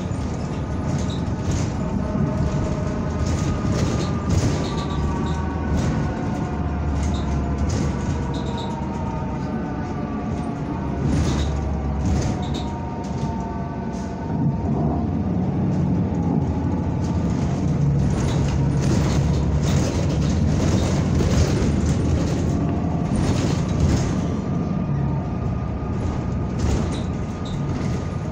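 Inside a moving NABI 45C-LFW city bus: a whine from the drivetrain slowly rises and falls in pitch as the bus speeds up and slows, over low road rumble. Frequent rattles and knocks come from the body.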